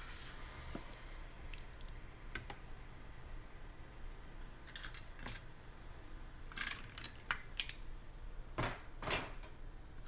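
Handling noises from a large folded cardboard game board being opened out and set down on a table: light clicks and rustles, with a few louder scrapes and scuffs in the second half.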